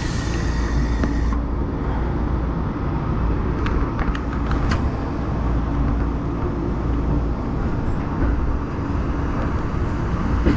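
Tokyo Metro Marunouchi Line train running with a steady low rumble. A hiss stops abruptly about a second in, and a few sharp clicks come about four to five seconds in.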